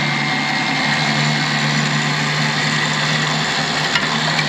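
Superwinch LP8500 electric winch running steadily under power, its motor and gear train whirring as it spools the cable.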